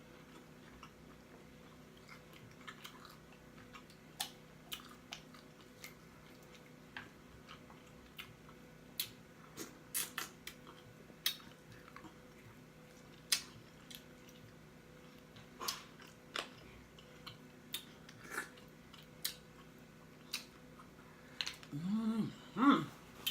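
Close-up mouth sounds of eating: wet chewing with sharp lip smacks and pops, scattered irregularly and growing more frequent and louder in the second half. A short voiced mouth sound comes near the end.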